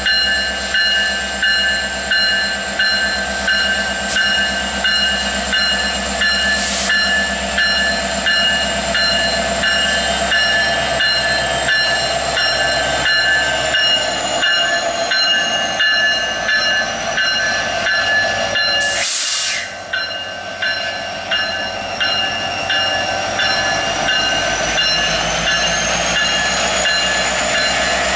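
Union Pacific EMD SD70ACe diesel-electric locomotive passing close by at the head of a covered-hopper train: a steady engine rumble with a repeated metallic ringing at about one and a half strikes a second over it. There is a short hiss about two-thirds of the way through.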